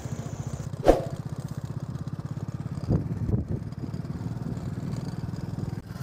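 Motorcycle engine running at low speed with a steady, rapid putter. There is a sharp knock about a second in and a few duller thumps near three seconds, as the bike jolts over a badly broken dirt road.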